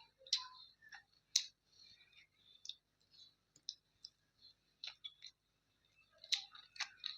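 Close-miked eating: irregular wet mouth clicks and smacks while chewing a mouthful of chicken curry and rice, a little denser near the end.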